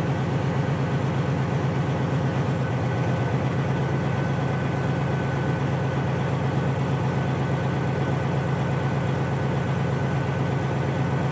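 Detroit Diesel Series 60 14-litre inline-six diesel idling steadily at about 1000 rpm, while the electronic service tool cuts out cylinders 1 and 6 in a cylinder cutout test to check their injectors.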